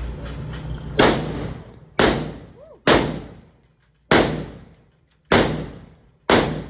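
A firearm fired six times in steady succession, roughly one shot a second, each sharp report followed by a short decaying echo.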